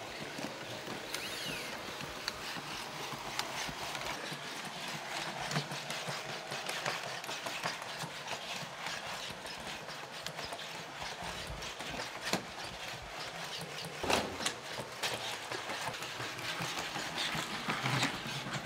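Boston Dynamics legged robots walking: a steady mechanical whir with a run of irregular taps and clicks as their feet strike the floor, one louder knock about fourteen seconds in.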